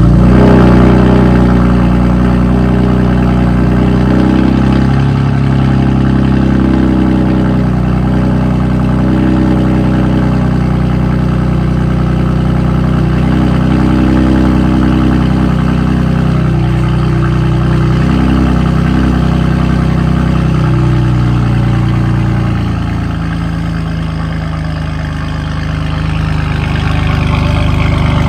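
BMW M4's S55 twin-turbo straight-six idling just after starting, with the exhaust valves unplugged so they stay open for a louder exhaust note. The idle runs steadily, dips slightly about 23 seconds in, and rises again near the end.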